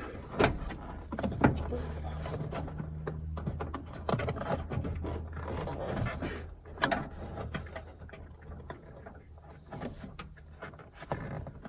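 Scattered plastic clicks and knocks of a truck's door trim pieces being handled and lined up for refitting, over a steady low hum.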